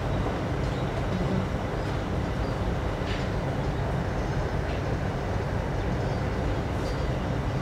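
Steady low mechanical rumble and hum, like running machinery or fans, with a few faint light clicks about three seconds in, near five seconds and near seven seconds.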